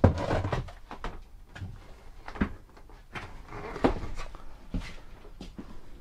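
A string of separate knocks and clunks inside a travel trailer: footsteps on the floor and bumps of the bathroom door and fittings as someone moves through. The sharpest knock comes right at the start, with others scattered a second or so apart.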